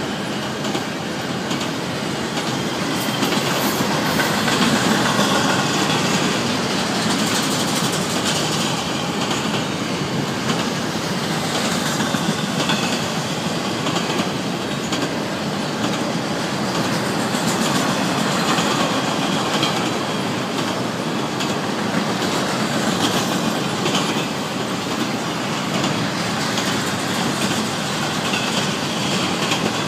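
CSX double-stack intermodal freight train's container well cars rolling steadily past: continuous rumble and clatter of steel wheels on the rails, with repeated clicks over the rail joints.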